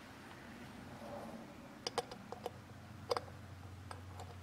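A few light metallic clicks and taps as a scooter water pump cover is set on its housing and the cover bolts are started by hand: a cluster about two seconds in and another about three seconds in.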